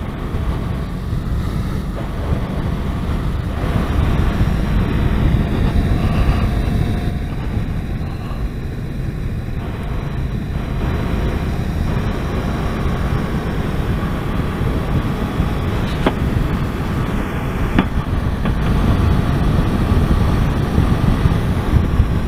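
Wind rushing over a helmet-mounted microphone, with a motorcycle's engine and road noise underneath as the bike cruises steadily in fourth gear at about 40 mph.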